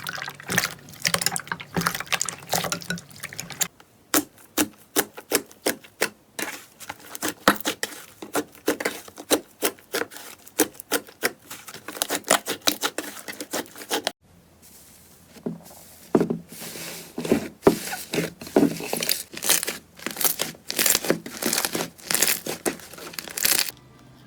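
Slime being squeezed and pressed by hand, making rapid sticky pops and crackles. The sound changes abruptly about four seconds in and again around fourteen seconds.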